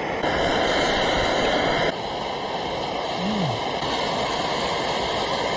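Backpacking stove burner running with a steady hiss, louder for the first two seconds; a short hummed "mm" about three seconds in.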